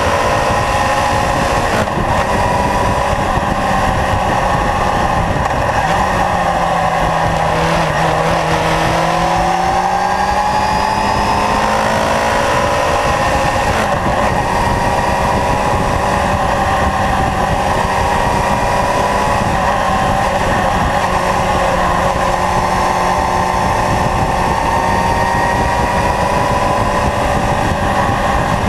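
Kawasaki Zephyr's air-cooled inline-four engine running at road speed under a heavy rushing noise. The engine note falls and then rises again about six to ten seconds in, then climbs slowly as the bike gathers speed.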